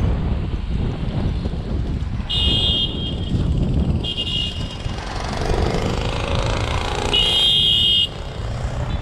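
Street traffic with wind rumbling on a bike-mounted camera's microphone; car horns toot three times: two short toots a couple of seconds in and a longer one near the end that cuts off sharply.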